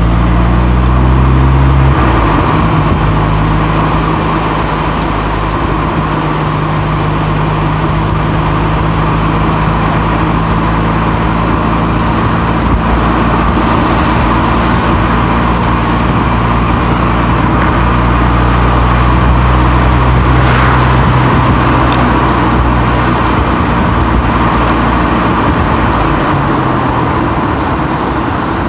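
Moving car heard from a microphone on the outside of its body: a steady low engine hum under tyre and road noise. The engine pitch shifts about two seconds in and again near the end.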